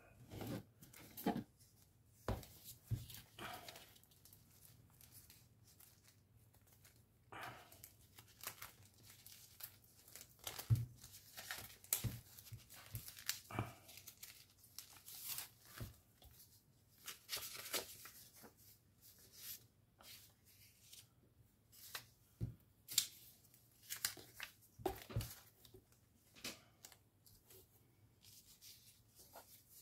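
Paper being handled: rustling and tearing in short, irregular bursts, with small taps and clicks between them.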